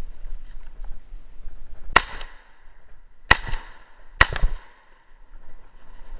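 Three shotgun shots fired in quick succession at a flushed woodcock, each a sharp crack with a short echo, the second and third less than a second and a half apart. Brush rustles before the first shot.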